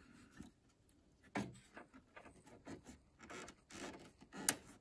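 Hands fitting a small 8 V fuse-type dial lamp into its holder in a stereo receiver's dial assembly: scattered light clicks and rubbing of metal and plastic parts, with one sharper click near the end.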